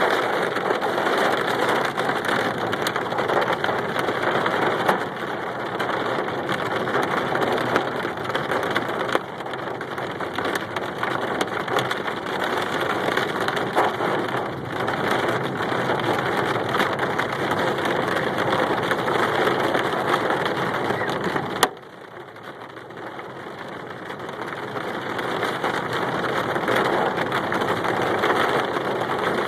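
Hail pelting a car's roof and windshield, heard from inside the car: a dense, steady clatter of small impacts. About two-thirds of the way through it drops off suddenly, then builds back up.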